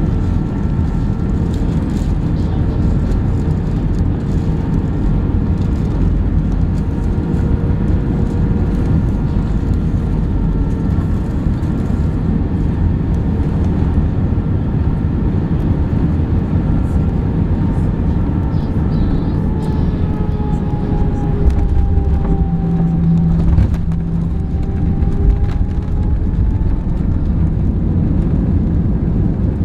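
Airbus A320 cabin noise on final approach and landing: a steady rush of airflow and jet engines with a whine whose pitch sags, then a low thump about three quarters of the way through as the wheels touch down. After it the engine pitch rises again as the ground spoilers stand up on the rollout.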